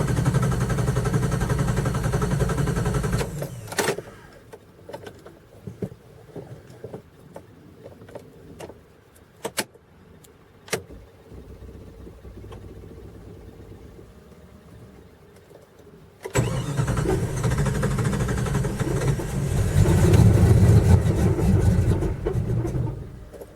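Starter cranking the cold Jeep 5.2 V8 for about three seconds, then after a long pause with a few sharp clicks it cranks again for about seven seconds, growing louder toward the end, with the engine not staying running. It is a cold-morning hard start, with no fuel pump heard priming beforehand.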